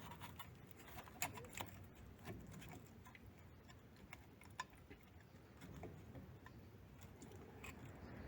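Near silence with faint, scattered clicks and light metallic taps as the handbrake lever and shoes of a rear drum brake are waggled by hand.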